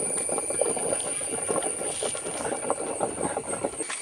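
Water boiling in a large aluminium pot as the steam from it cooks banana-leaf parcels of biryani in a smaller pot set inside: a dense, irregular bubbling. It breaks off suddenly near the end.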